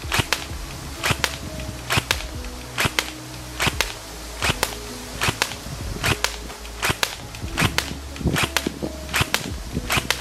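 ARES AR308M airsoft electric gun with a V2 EFCS gearbox firing single shots on semi-auto, one about every three-quarters of a second. Each shot is a sharp snap followed a split second later by a second click.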